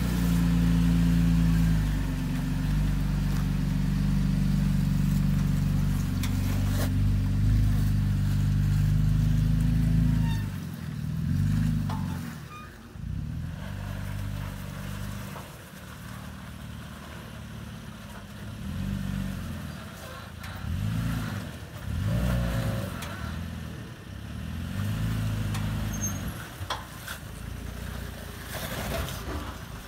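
Third-generation Toyota Tacoma's engine pulling under load while rock crawling, held at steady revs for about the first ten seconds, then rising and falling in short bursts of throttle.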